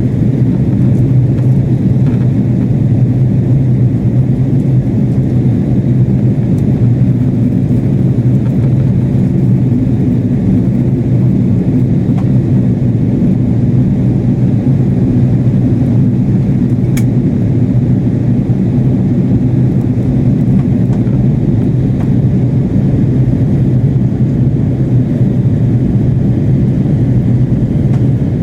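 Steady in-flight cabin noise of an Airbus A330-300 airliner: a constant low drone of jet engines and rushing air, heard from inside the passenger cabin.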